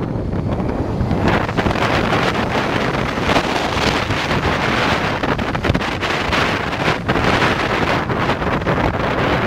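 Heavy wind buffeting the microphone of a camera moving at road speed, with motorcycle engines and road noise beneath.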